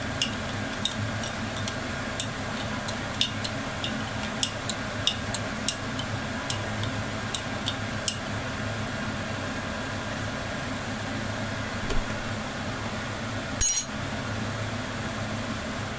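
Light clinks of a utensil against glass kitchenware as syrup ingredients are handled, coming every second or so in the first half and sparser after, with one louder clink near the end. A steady low hum runs underneath.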